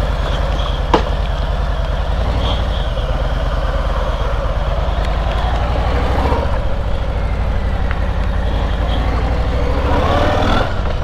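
A vehicle engine running steadily at idle, a low even rumble, with one sharp click about a second in.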